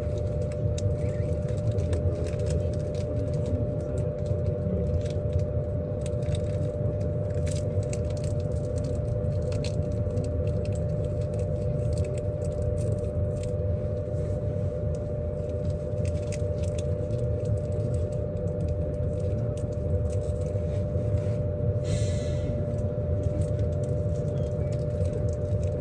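BYD K8 electric bus standing at a stop: a steady electrical hum on one tone over a low rumble, with light scattered clicks and a short hiss near the end.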